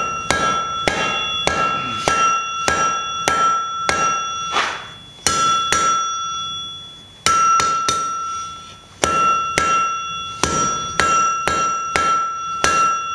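Hand hammer striking the glowing, upset end of a steel bar on an anvil, about two blows a second in runs with short pauses, the anvil ringing on between blows.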